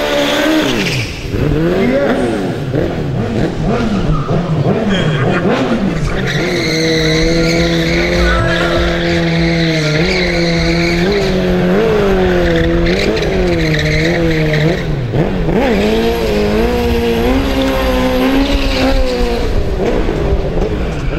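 Stretched-swingarm sportbike engine revved hard and rapidly up and down, then held high for several seconds while the rear tyre spins and squeals in a burnout drift. The revs waver again near the end.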